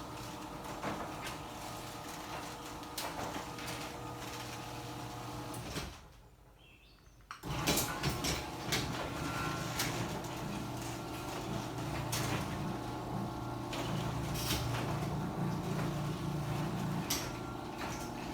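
Sectional garage door running along its track, with a steady motor hum and clicking from the rollers. It stops for about a second and a half a third of the way in, then runs again, a little louder.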